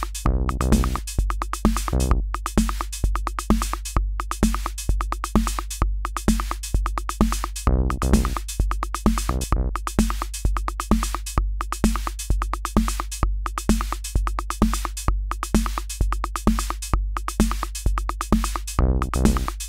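Akai Rhythm Wolf analog drum machine playing a looped electronic beat: a steady kick drum on every beat with sharp hi-hat and snare hits over it, and a short pitched bass-synth phrase that comes back every several seconds.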